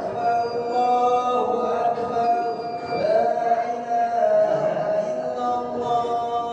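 A man's voice chanting Islamic Arabic recitation in long held, ornamented notes that bend and slide in pitch.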